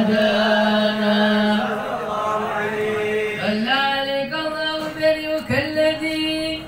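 Men chanting an Arabic Maulid poem in praise of the Prophet Muhammad, unaccompanied, drawing out the word "wa hadana" in long held notes.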